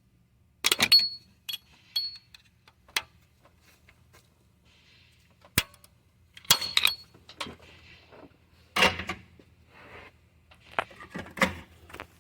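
Metal hand tools and engine parts clinking and clanking in irregular short clusters, several sharp knocks carrying a brief metallic ring.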